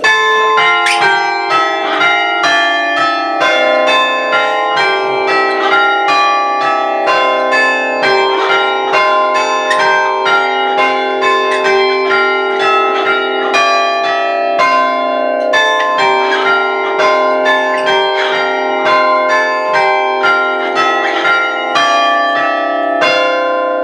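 Six church bells chimed by hand on an Ellacombe chiming apparatus, their hammers striking the stationary bells in a quick, steady run of notes that ring on and overlap.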